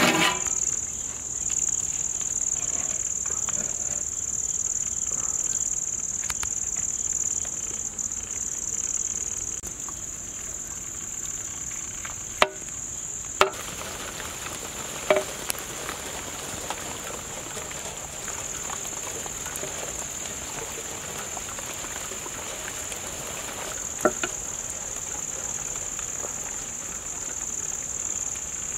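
Steady, high-pitched chirring of an outdoor insect chorus, crickets or similar. A few sharp clicks break in, three in quick succession about halfway through and one more near the end.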